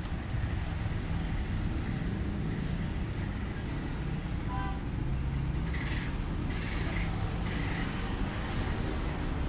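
Steady low rumble and hiss of background noise, with patches of higher hiss in the second half.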